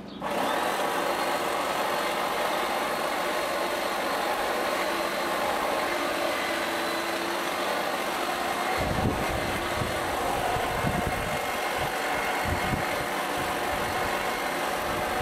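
Small engine running steadily at a constant speed, the kind on a powered garden tool. In the second half there are irregular low thuds.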